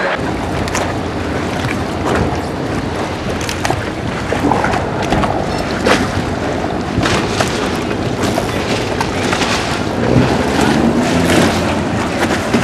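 Steady rush of wind on the microphone and water from a boat under way on a canal, with scattered knocks and crackles throughout.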